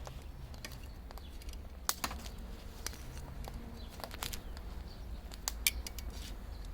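Scattered light clicks and ticks at a charcoal grill, a few seconds apart and then closer together near the end, over a low steady rumble.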